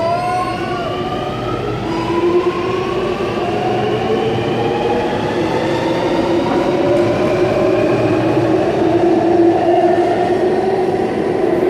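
Sydney Metro Alstom Metropolis train pulling through the station, its electric traction motors whining in several tones that rise steadily in pitch as it accelerates, over the rumble of the train.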